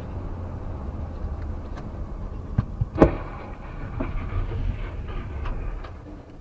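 Steady low rumble of a car on the road, then a sharp, loud crash impact about three seconds in, followed by a few scattered knocks and clatter.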